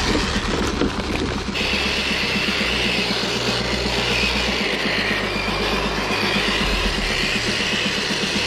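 Electric motor and gear drive of a Redcat Gen 8 RC crawler running as it tows a trailer, a steady whine with a fast, even clatter that shifts in pitch about one and a half seconds in.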